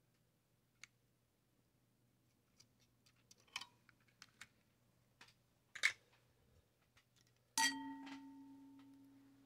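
Light clicks and handling knocks on a workbench. About seven and a half seconds in, a metal object is struck and rings with a clear bell-like tone that fades over about two seconds. A low steady hum runs underneath.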